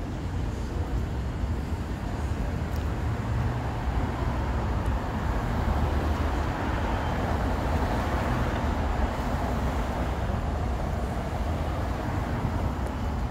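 Road traffic noise: a steady low rumble of cars on the street, swelling into a louder hiss midway as a vehicle passes, then easing.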